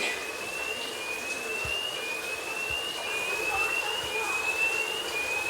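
An electronic alarm tone that rises in pitch over about a second and repeats about once a second, over a steady hum.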